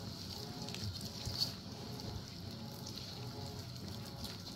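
A hand beating thick, moist bara batter in a stainless steel bowl: soft, irregular wet slapping and squelching, with a few light ticks.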